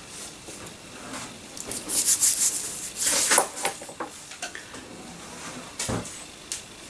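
Hands pressing and rubbing a pastry pie lid down on a floured wooden board: two short bursts of rubbing and scraping about two and three seconds in, then a single dull knock near the end.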